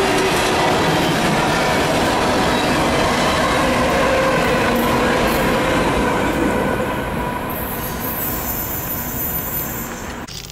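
Freight train cars rolling past on steel rails, with steady wheel squeal over the clatter. The noise eases off about two-thirds of the way through as the train moves away, and thin high tones come in near the end.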